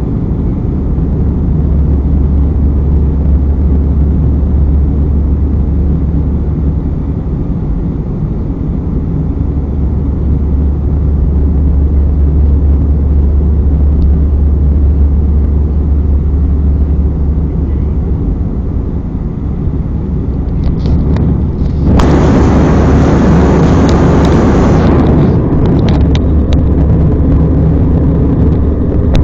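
Airplane cabin noise in flight: a steady low drone of engines and airflow, with a louder hiss for about three seconds near the end.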